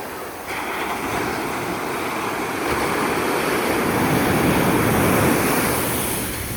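Atlantic Ocean surf breaking on the shore: a rushing wash of water that swells from about half a second in, is loudest near the end, then eases off.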